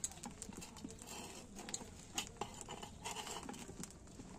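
Light scraping and scattered sharp clicks of a utensil working against cookware, a few louder clicks among them.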